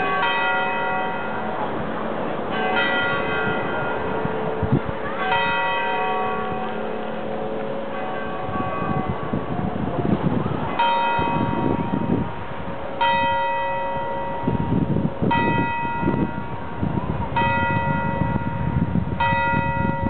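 A church bell tolling slowly, about nine single strokes roughly two seconds apart, each stroke ringing on and fading before the next.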